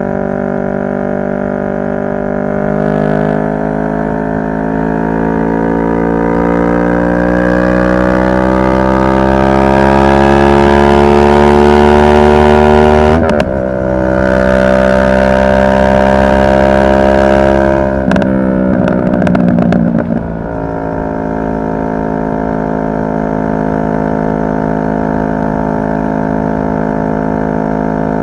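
2023 CFMoto 650NK's parallel-twin engine under way: it pulls with a steadily rising pitch for about ten seconds, drops sharply with an upshift, and pulls again, with wind rush loudest at speed. About eighteen seconds in the throttle is rolled off with a brief rough, crackly patch, and the engine settles into a steady, quieter cruise.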